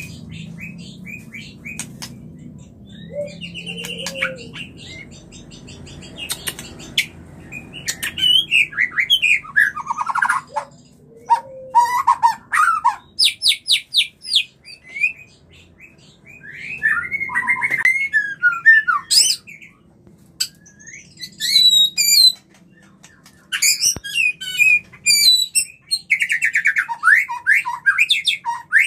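White-rumped shama singing its breeding-condition song. It sings loud, varied phrases of clear whistles, rapid trills and fast repeated notes, with short pauses between them.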